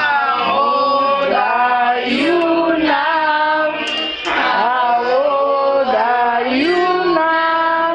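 A group of women and children singing a birthday song together in held phrases, with a brief break about four seconds in.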